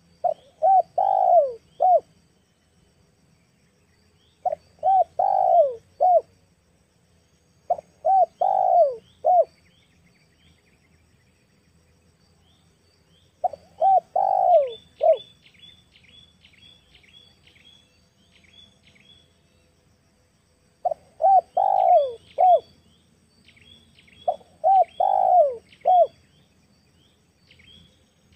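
Spotted dove cooing: six phrases of three to four notes each, a few seconds apart, with small birds chirping thinly in the background. It is offered as a female's call for luring male doves.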